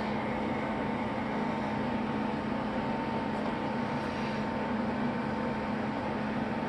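Steady mechanical hum with a constant low tone and a fainter higher whine, holding the same level throughout.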